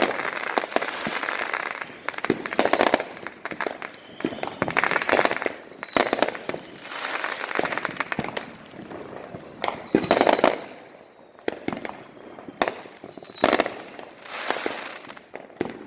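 Many fireworks going off around a neighborhood: dense crackling and sharp bangs. A short falling whistle recurs every two to four seconds among the pops.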